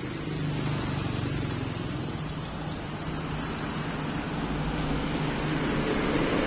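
Road traffic on a busy main road: a steady rumble of engines and tyres that grows louder toward the end.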